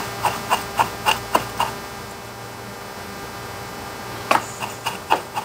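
Two quick runs of light ticks, about four a second: seven over the first second and a half, then five more from about four seconds in. Under them runs a steady electrical hum.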